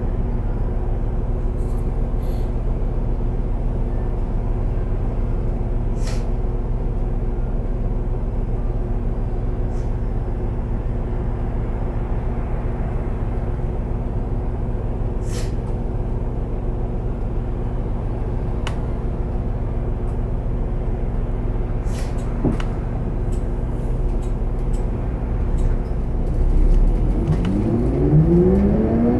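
Isuzu Erga Hybrid city bus running steadily, heard from inside the cabin as a low drone with a few scattered clicks. About two seconds from the end several tones rise together in pitch and the sound grows louder as the bus accelerates.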